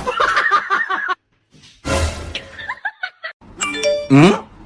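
Snickering laughter, a short pause, then a snippet of music with chime-like tones and a call that slides up and down in pitch.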